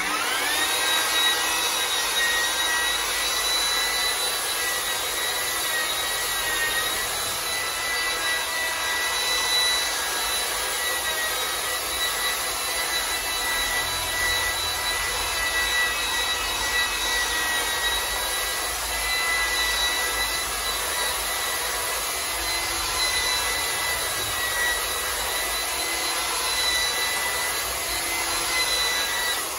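Corded electric polisher running steadily with a compound-loaded pad on a plastic headlight lens, with a steady high motor whine that rises as it spins up at the start. This is the buffing stage of a headlight restoration after wet-sanding.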